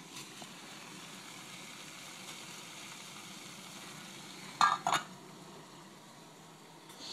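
Steady hiss of a small pot of water heating over a lit DIY alcohol stove, with a metal pot lid clanking twice as it is set back on the pot about four and a half seconds in.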